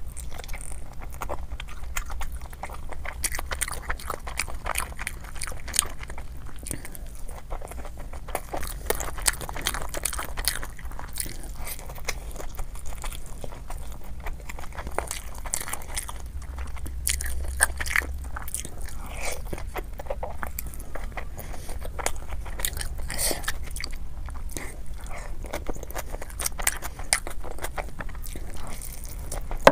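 Close-miked chewing, biting and crunching as a person eats saucy rice paper dumplings and noodles: many short, irregular crunches and mouth clicks throughout.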